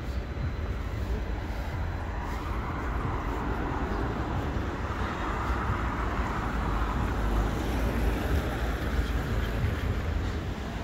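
City traffic with a constant low rumble; a vehicle passes, its noise swelling and then fading over several seconds.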